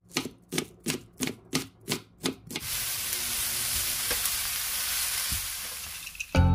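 Knife chopping cabbage on a wooden cutting board, about seven quick strokes. Then shredded cabbage and carrot sizzling in a hot frying pan as a wooden spatula stirs them, a steady hiss with a few light clicks.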